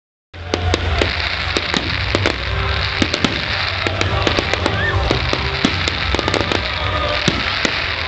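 Fireworks display: aerial shells bursting in a rapid, irregular string of bangs and crackles.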